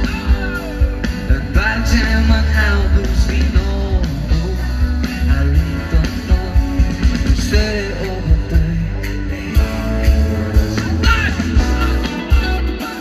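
A live pop-rock band playing loudly through a concert sound system, heard from within the crowd: heavy bass, a steady drum beat, electric guitar and singing.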